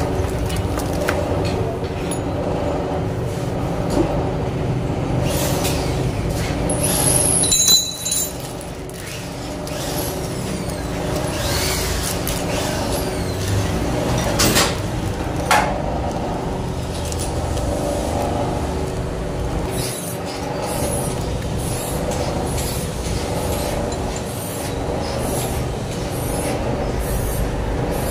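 A steady mechanical hum with several held tones runs throughout. Over it come short crackles of a plastic packet being torn open and handled, about a quarter of the way in, and two light clicks of small metal engine parts being handled around the middle.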